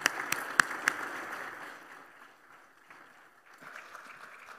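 Applause: a few sharp hand claps close to the microphone over a spread of audience clapping, which dies away after about two seconds.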